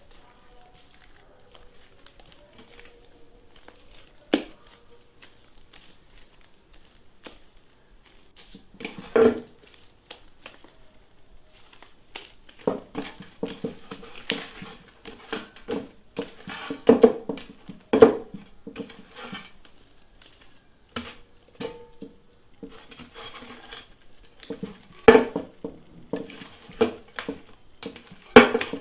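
Glue-and-baking-soda slime being mixed and worked in a bowl. Irregular squelches, pops and clicks come in bursts, mostly from about twelve seconds in, with a few louder snaps. The slime is still sticky and is being worked with extra activator to get rid of the stickiness.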